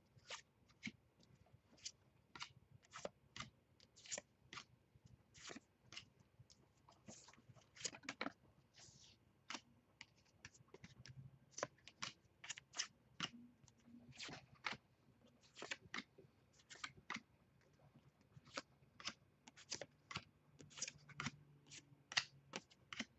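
Baseball trading cards being flipped through by hand, one at a time: a string of faint, irregular clicks and snaps as each card is slid off the stack, about two a second.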